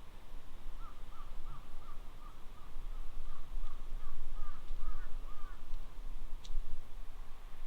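A bird calling a quick series of short rising-and-falling notes, about two a second, for several seconds, over a steady low rumble.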